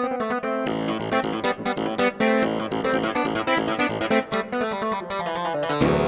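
Korg TR Rack (Trinity Rack) synthesizer module playing its 'Rubber Clav' preset combi: a clavinet-style keyboard sound in quick, short notes, with lower notes joining in underneath a little under a second in.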